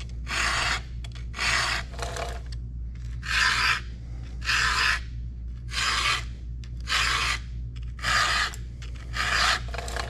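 Hand-filing a saw chain with a 3/16-inch round file, about nine even rasping push strokes roughly a second apart. The undersized file is curving the gullet and sharpening the side plate of a full-chisel cutter.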